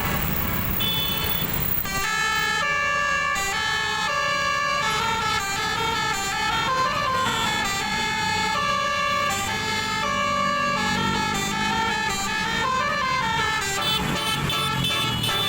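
Bus 'telolet' multi-tone horn playing a tune of held notes changing step by step, with a siren-like rise and fall twice, over low engine rumble.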